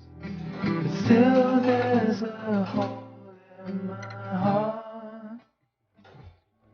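A song with singing over acoustic guitar, breaking off briefly near the end.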